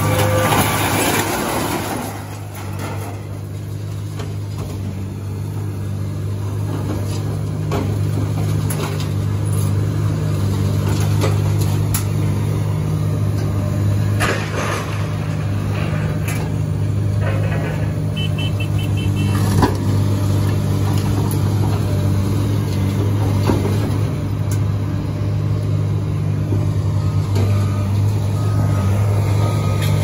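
Dump truck's engine running steadily with the bed tipped up to unload scrap metal. Scattered clanks of the scrap shifting in the bed, the sharpest about twenty seconds in.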